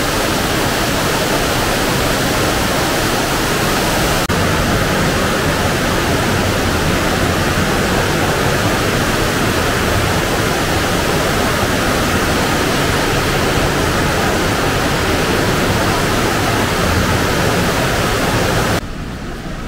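Water falling and rushing through the cave inside the mountain: a loud, steady rush of water. It drops off abruptly about 19 seconds in.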